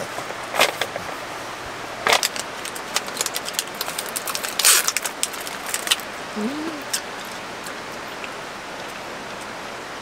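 Plastic snack wrapper being handled and crinkled, a run of sharp crackles with one longer rustle about five seconds in, over the steady rush of a mountain stream.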